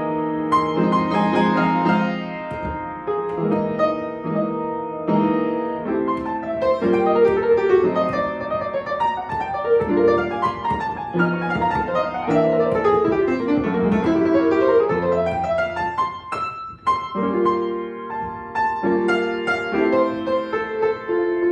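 Piano playing a Christmas arrangement, with sustained chords and a melody moving above them, and a brief pause a little past the middle.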